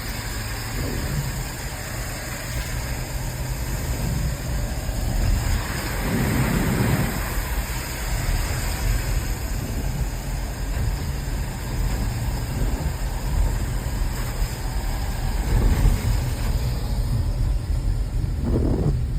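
A car being driven, heard from inside: a steady low rumble of the engine and tyres on the road, with an even background noise.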